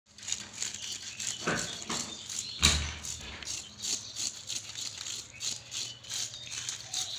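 Knife scraping the scales off a large fish in quick rasping strokes, about three or four a second. A louder thump comes about two and a half seconds in.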